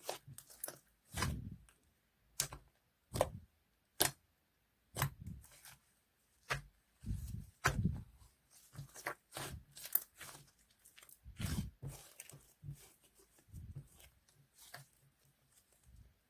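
Slime being squeezed and pressed by hand, making irregular sticky clicks and pops, about one or two a second, some with a soft thud.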